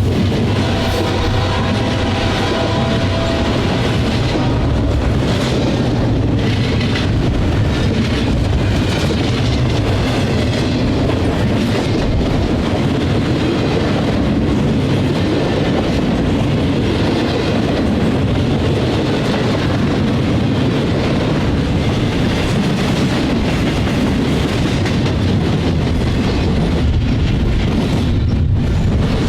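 Intermodal freight train's cars rolling past, with a steady noise of steel wheels on rail. The tail of a locomotive horn sounds faintly in the first three seconds.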